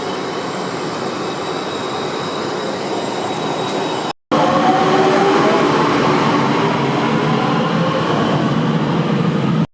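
Isfahan metro train running, heard from inside the car as a steady rumble. After a cut about four seconds in it is louder, with a whining tone over the rumble.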